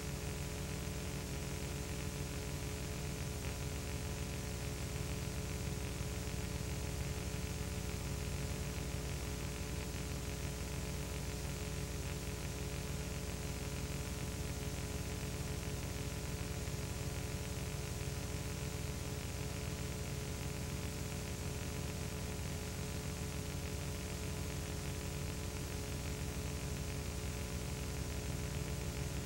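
Steady hiss with a low electrical hum and several faint steady tones underneath, unchanging throughout and with no other sound: the noise floor of a silent film transfer.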